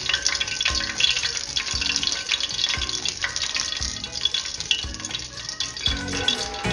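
Hot oil in a saucepan sizzling and crackling around deep-frying sesame-coated prawn toast, with a dense run of small pops. A soft background beat pulses about once a second underneath.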